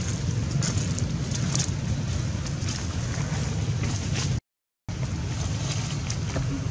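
Wind buffeting the microphone as a steady low rumble, with faint rustles of dry leaves. The sound cuts out completely for about half a second past the middle, then resumes.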